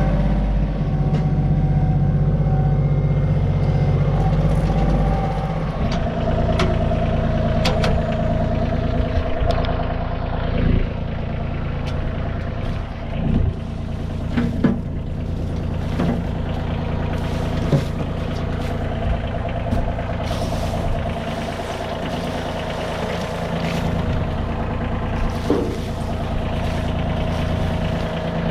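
Tractor engine running steadily. Its note shifts about five seconds in as the front-end loader works. Occasional sharp knocks of split firewood tumbling and dropping can be heard over it.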